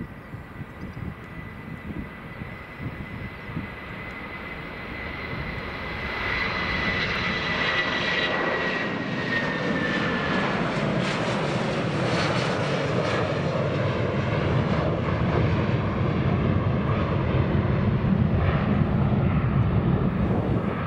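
Boeing 757-200 jet engines at takeoff power as the airliner rolls, lifts off and climbs past: a broad roar that builds and stays loud, with a high fan whine that slides down in pitch about eight to ten seconds in as it goes by.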